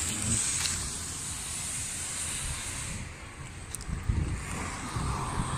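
Road traffic noise as a car passes on the street, with wind buffeting the phone's microphone in low gusts.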